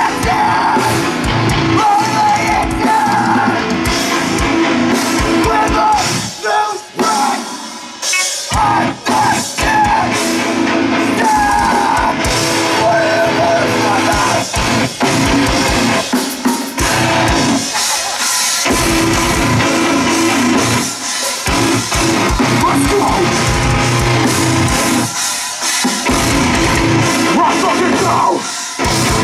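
A heavy rock band playing loud and live, with drum kit, guitars and singing. The whole band cuts out briefly several times, in short stop-start breaks.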